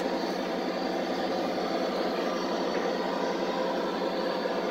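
Lionel O-gauge model train running past on three-rail track: a steady rolling and motor noise that carries on after the last passenger car has cleared.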